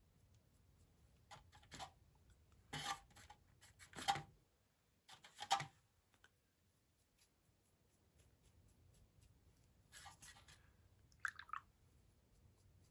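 Faint scratchy rubbing and dabbing of a small paintbrush working watered-down acrylic paint on a plastic plate and into a stiffened fleece hat, a handful of short strokes with a pause in the middle.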